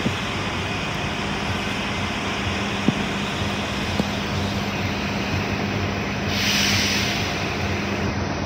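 Bus terminal din: diesel city buses idling with a steady low engine hum over a constant rush of noise from rain and traffic, with two light knocks and a short burst of hiss about six seconds in.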